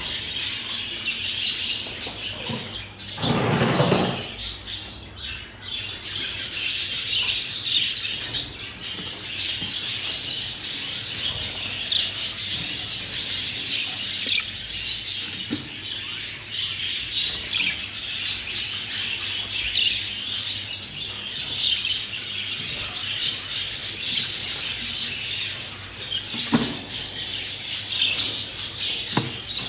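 A group of budgerigars chattering and chirping continuously, with a brief low rumble about three seconds in.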